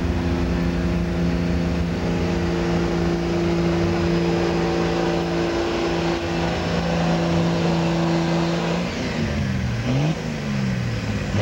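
Second-generation Dodge Ram pickup's 5.9-litre Cummins turbo-diesel held at steady high revs under full load while it drags a weight-transfer sled. About nine seconds in, the steady note breaks into revs falling and rising as the pull ends.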